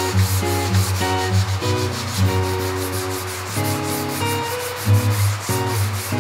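Background music of plucked-string notes over a fast, even scratching rhythm.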